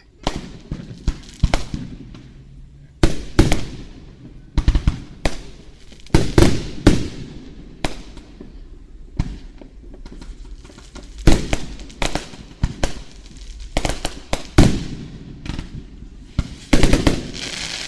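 Aerial fireworks shells bursting in irregular succession: sharp booms with echoing tails, several coming in quick clusters of reports, the loudest about three, six to seven, eleven and seventeen seconds in.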